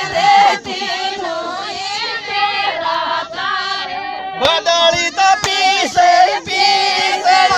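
Women's voices singing a folk song together, several voices at once, with a few sharp clicks in the second half.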